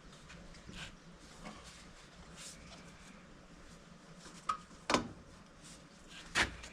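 Scattered light clicks and rustles of parts being handled during hands-on work on a mini excavator's air filter housing. Three sharper knocks stand out, two close together about five seconds in and one near the end.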